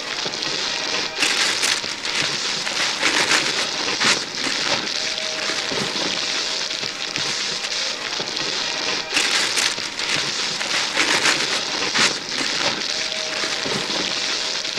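Wrapping paper being torn and crumpled off gift boxes: continuous crackling and rustling with sharp, loud rips, a few of them in quick succession about a second in and again after about nine seconds.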